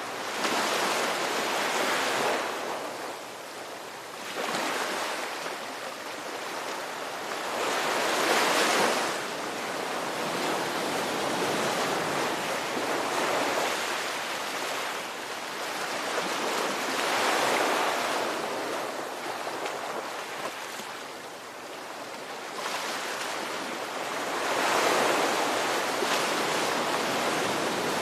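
Ocean waves breaking and washing on a shore, a steady surf that swells and ebbs every few seconds.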